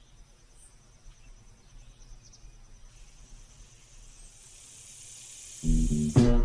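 Insects chirping in a fast, even, high-pitched trill, fading under a swelling high hiss. About five and a half seconds in, loud music with a heavy bass cuts in suddenly.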